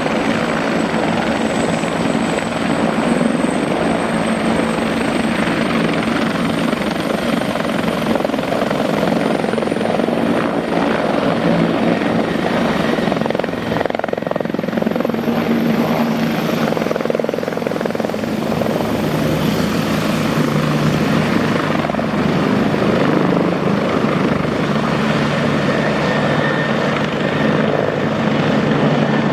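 Twin-turbine Bell helicopters running close by: first the Bell 412EPX, then the Bell 429 GlobalRanger. Steady rotor and turbine noise, with a thin high turbine whine that climbs slowly in pitch during the first half.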